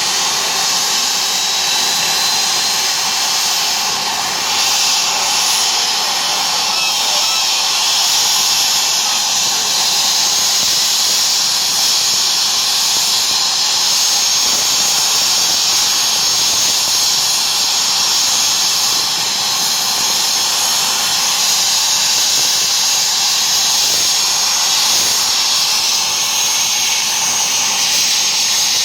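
Small aircraft's motors and propellers running steadily in flight: an even high whine with hiss.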